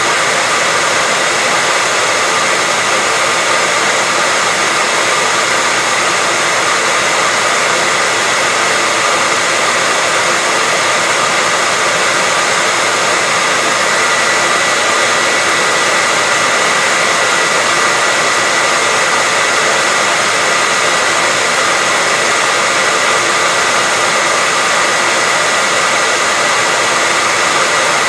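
Hair dryer running steadily: a continuous, even rush of air with a constant high motor whine.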